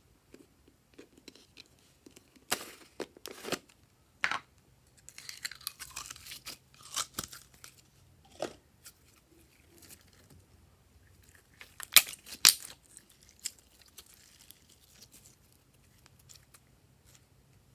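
Glossy slime being worked and stretched by hand, giving sticky crackling and a string of sharp pops and clicks as air pockets burst. The loudest pair of pops comes about two-thirds of the way through.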